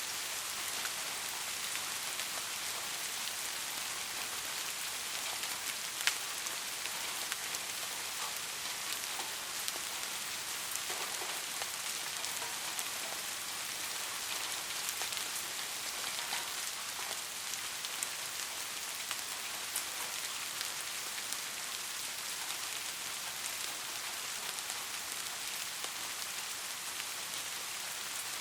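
Steady rain falling, an even hiss with many small drop ticks scattered through it and one sharper drop about six seconds in.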